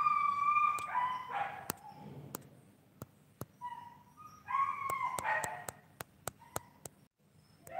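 A dog giving high, drawn-out yelps in short runs: at the start, again in the middle and once more at the very end. Sharp clicks are scattered between the runs.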